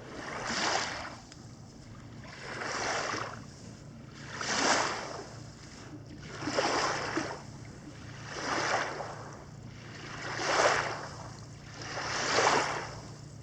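Small waves washing onto a sandy lake shore, one rushing swell about every two seconds, over a faint steady low hum.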